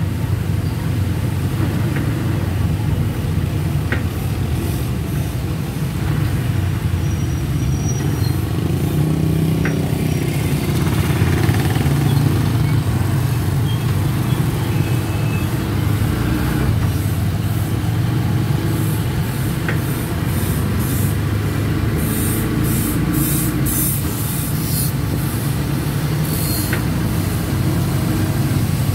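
Steady low engine drone and road noise from on board a vehicle travelling along a rain-wet street.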